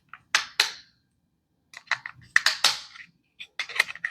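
Plastic clicks and knocks of AAA batteries being put into a TV remote's battery compartment, in several small clusters of sharp clicks.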